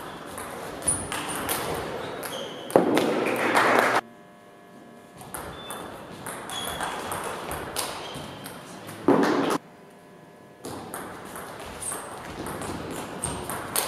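Table tennis rally: a table tennis ball clicks sharply off the rackets and the table, echoing in a large hall. Twice, between rallies, there is a brief louder burst of noise.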